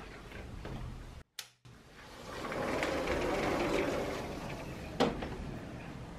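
A window being slid open along its track: a rolling rumble for about two seconds, then a sharp knock as it stops.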